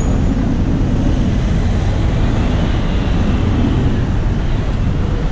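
Steady wind rumble on the microphone of a camera riding on a moving bicycle, with street traffic noise mixed in.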